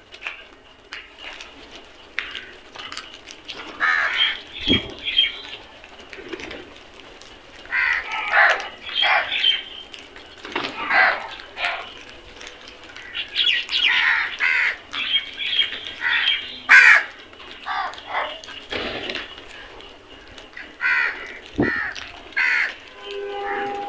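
A flock of crows cawing, the calls coming in bursts of several overlapping birds with short pauses between. Two brief low thuds are mixed in.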